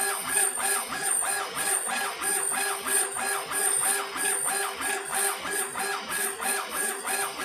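Laser engraving machine's head motors whining while raster-engraving stone. The pitch rises and falls with each back-and-forth pass of the head, about three times a second.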